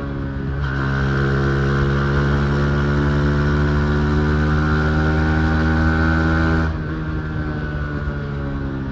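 Yamaha MT-15's 155 cc single-cylinder engine pulling under steady throttle while riding, its pitch creeping slightly upward. The throttle closes near the end, and the exhaust drops to a quieter off-throttle note.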